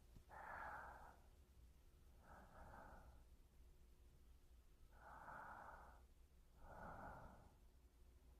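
Soft, slow human breathing close to a binaural microphone: four unhurried breaths, each a little under a second, with pauses between them.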